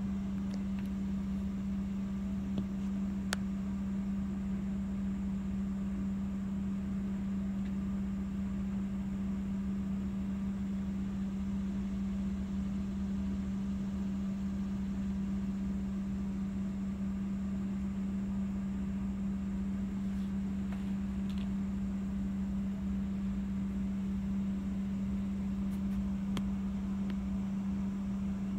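Steady machine hum holding one constant low tone, with a faint click about three seconds in.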